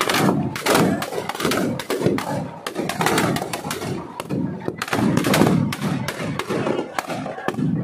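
Firecrackers packed inside a burning Ravan effigy going off in a rapid, irregular string of sharp bangs and crackles, with crowd voices underneath.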